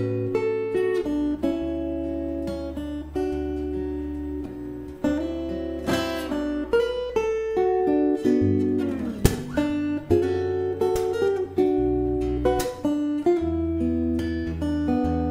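Solo acoustic guitar played fingerstyle: a slow melody of plucked notes over held bass notes. About nine seconds in there is a quick falling glide that ends in a sharp hit.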